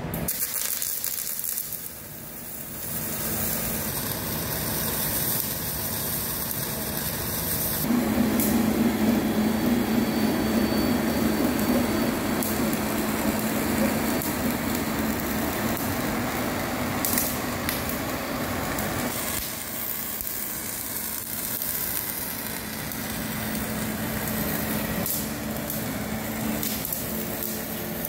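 Metal-cored wire MIG welding arc running steadily at 30 volts and 6.5 metres of wire per minute, laying a weld around a thick steel cylinder barrel. It is louder for a stretch in the middle.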